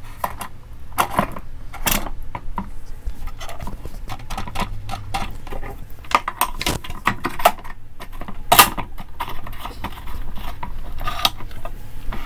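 Round metal rods being slid through holes in a line-winder machine's base block: irregular metal clicks, knocks and scraping as they are handled into place, with a few sharper knocks, the loudest about eight and a half seconds in.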